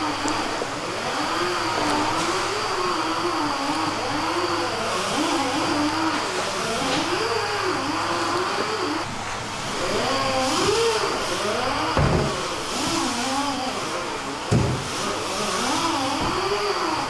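A steady mechanical whine whose pitch keeps wavering up and down over a low hum. About twelve and fourteen and a half seconds in come two dull thumps: a kitchen knife chopping through a giant eel onto a wooden cutting board.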